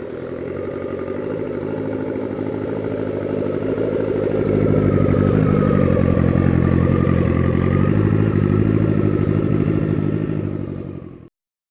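Turbocharged Kawasaki ZX12R motorcycle's inline-four engine running, growing louder about four seconds in, then cutting off abruptly near the end.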